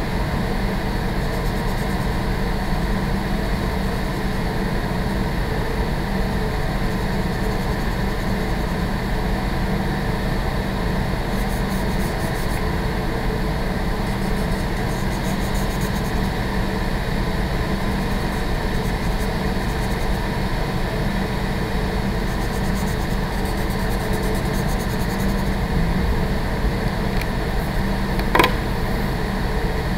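Steady hum of a building's ventilation system running. Faint scratching of a marker on paper comes in at times, and there is one sharp click near the end.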